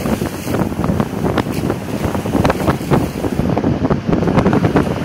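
Wind buffeting the microphone in irregular gusts, over water rushing and splashing past the hulls of a small trimaran under sail.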